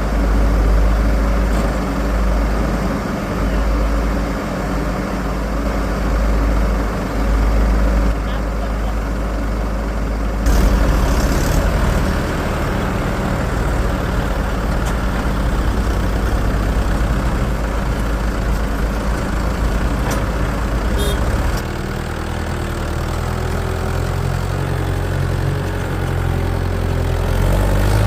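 Heavy machinery's diesel engine running steadily, its note shifting twice as the throttle or load changes.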